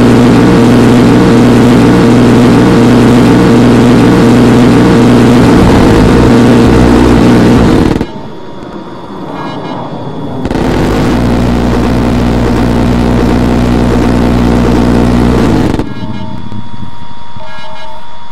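Loud, steady motor drone at a constant pitch, broken twice by abrupt cuts to a quieter hum; near the end, short repeated tones sound over the quieter hum.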